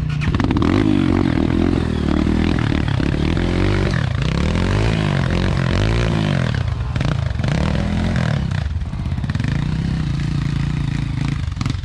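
Trail motorcycle engine revving hard, its pitch rising and falling several times as the throttle is worked, with some clatter.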